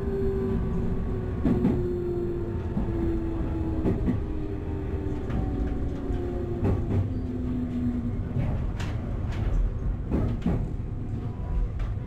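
Electric train's traction motors whining with a slowly falling pitch as it brakes into a station, over a steady running rumble. The wheels knock sharply over rail joints now and then.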